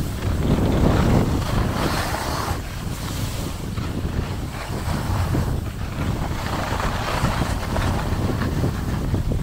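Wind buffeting a handheld DJI Pocket 2's microphone while skiing downhill, a steady low rumble. Over it comes the hiss of skis scraping across packed snow, swelling during turns about a second in and again near the end.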